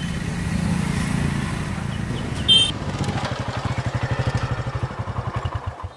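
Motorcycle engine running as the bike rolls up, then settling into an even low pulsing beat of about fifteen pulses a second. A brief high squeal comes about two and a half seconds in, and the engine sound cuts off abruptly near the end.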